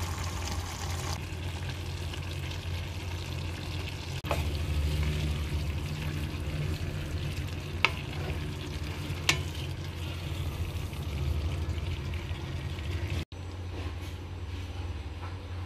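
Minced meat and mushrooms sizzling in a frying pan while being stirred with a wooden spatula, with a few sharp taps of the spatula against the pan and a steady low hum underneath.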